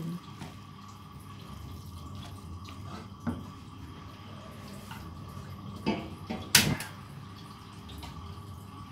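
Gas stove burner being lit and burning: a few sharp clicks, the loudest about six and a half seconds in, over the steady low hiss of the gas flame.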